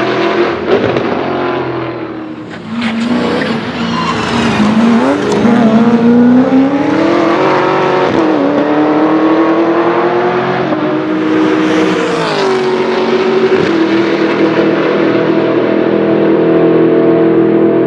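Chevrolet Camaro SS touring race car's V8 running hard on track. The engine note climbs steadily for several seconds with a brief drop partway through at a gear change, falls about three quarters of the way in, then holds a steady note.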